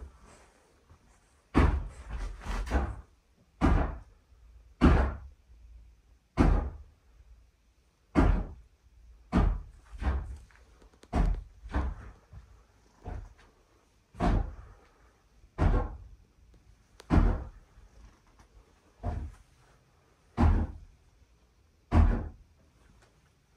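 Slow, heavy footsteps on old floorboards: a dull thud roughly every second and a half, a few of them with a short creak or scrape after the step.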